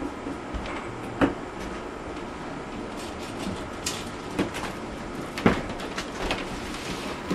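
Felt-tip marker writing on paper held against a wall, with scattered short taps and scratches. Two sharper knocks stand out, about a second in and about five and a half seconds in.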